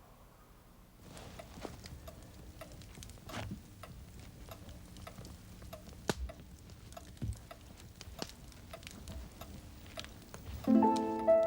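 Scattered, unevenly spaced ticking and tapping clicks over a faint low steady hum. Piano music comes in near the end.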